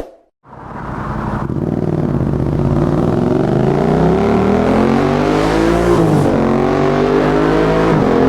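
Yamaha MT-07's parallel-twin engine through an Akrapovic full carbon exhaust with the dB killer removed, accelerating hard. The engine note climbs steadily and breaks twice, about six and eight seconds in, for quick upshifts, with a Healtech quickshifter fitted.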